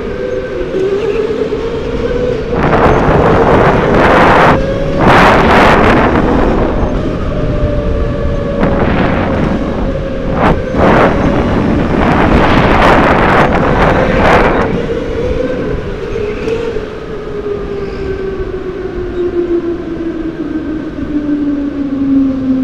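Go-kart motor heard from on board, a steady whine that wavers in pitch as the kart drives the track and drops in pitch over the last few seconds as it slows. Several loud bursts of rushing noise come over it in the middle.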